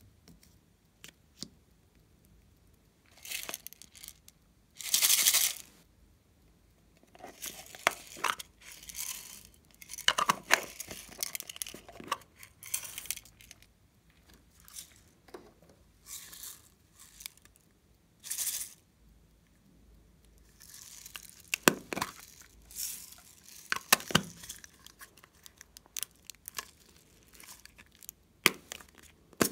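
Short rustles, clicks and taps at irregular intervals as small bottles and plastic containers are opened and handled and sprinkles and sequins are shaken out onto slime in a glass bowl. The loudest is a noisy burst of about a second, around five seconds in.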